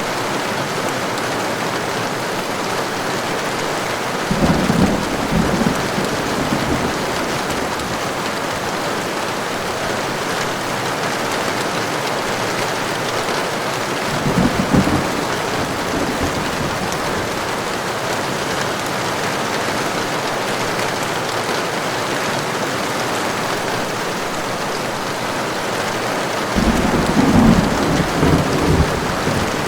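Heavy, steady rain with three rumbles of distant thunder: one about four seconds in, a short one around halfway, and a longer, louder roll near the end.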